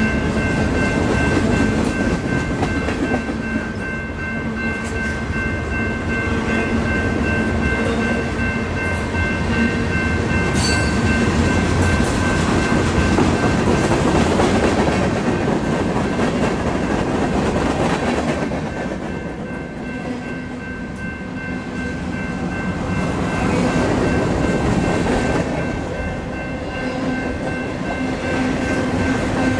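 Mixed freight train of boxcars, covered hoppers and tank cars rolling past, its steel wheels running on the rails in a steady rumble with a high ringing tone over it. The sound eases a little about two-thirds of the way through, then builds again.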